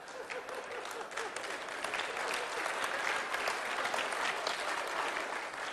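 Audience applauding, building over the first couple of seconds into steady clapping.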